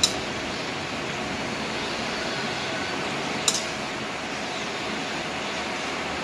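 Metal serving utensil clinking sharply against an aluminium wok twice, right at the start and about three and a half seconds in, while pancit noodles are tossed, over a steady background hiss.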